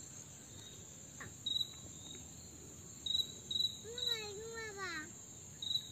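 Insects calling in the garden: a steady high-pitched drone with short chirps repeating every second or so. About four seconds in, a brief pitched call bends up and down once.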